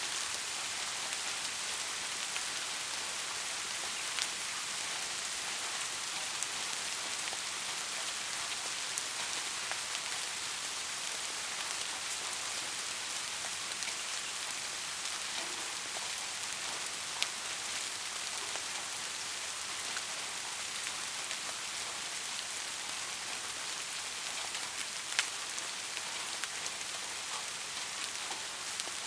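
Steady rain falling, an even hiss with scattered sharper single drop hits.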